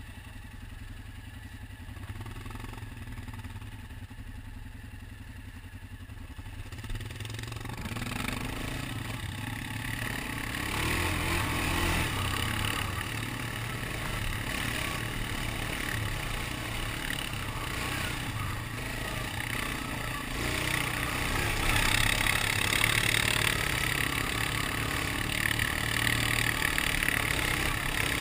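Suzuki ATV engine idling low and steady at a stop. About seven seconds in it pulls away and runs along a rocky dirt trail, the engine and trail noise growing louder.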